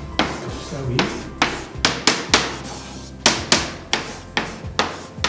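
Chalk writing on a blackboard: a string of sharp taps and short scratchy strokes at an irregular pace of about two a second as letters and figures are written.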